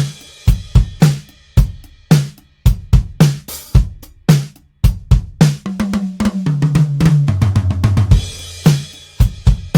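Sampled acoustic drum kit of the Toontrack EZdrummer 3 plugin playing a groove of kick, snare and hi-hat. Midway a tom fill steps down from the high toms to the floor tom, then a cymbal crash brings the beat back in.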